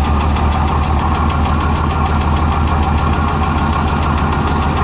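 Renix Jeep 4.0 straight-six idling with the number 6 fuel injector unplugged, so it runs on five cylinders. A rapid, regular valve-train tick sits over the steady engine note. It comes from the number 6 exhaust rocker, which was backed off to cure a misfire; the owner wonders whether a weak valve spring is behind it.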